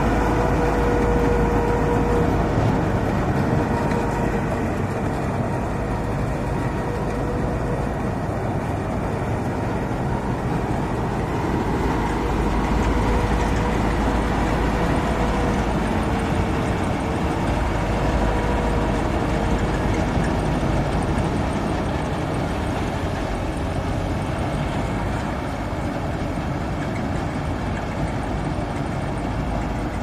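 Mahindra combine harvester running steadily while cutting and threshing rice, its engine and threshing drum making a continuous machine drone. A steady whine rides over it and fades about two-thirds of the way in.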